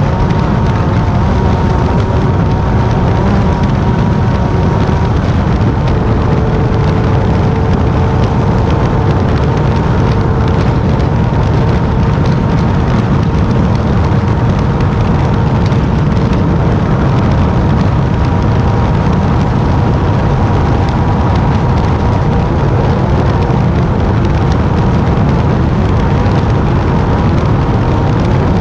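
Class 10 off-road race buggy driving at speed: a loud, steady rumble with a faint, even engine drone underneath.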